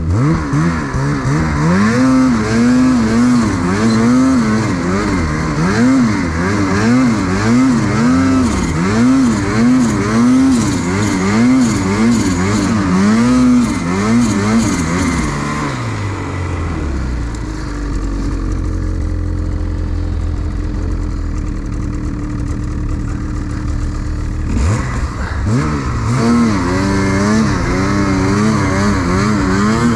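Ski-Doo snowmobile's 850 two-stroke engine under throttle, revving up and down about once a second. Its pitch drops to a low steady run about halfway through, then it revs up sharply again with the same rise and fall near the end.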